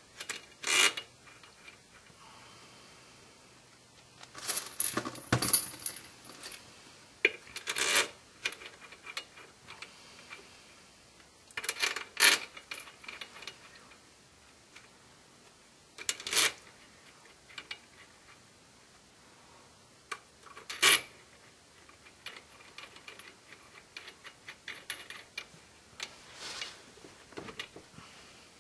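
Scattered sharp metallic clinks and small rattles, several with a brief ring, as steel bolts are handled and fitted into an engine flywheel.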